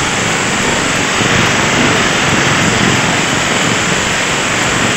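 A 5-inch CM5 marble cutter's motor and blade running free at full speed on freshly replaced armature bearings, a steady, even drone. It is running normally, with no further issue.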